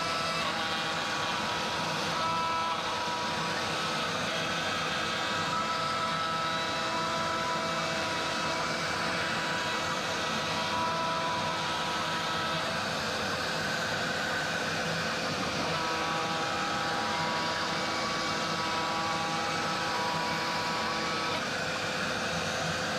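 Genmitsu ProVerXL 4030 CNC router milling a pocket in maple plywood: the spindle and end mill cut steadily while a vacuum nozzle draws off the chips. A steady hiss sits under several held whining tones, which change pitch a few times as the machine changes its moves.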